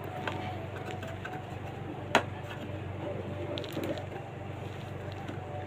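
One sharp knock about two seconds in, with a few faint clicks and handling noises, over a steady low hum.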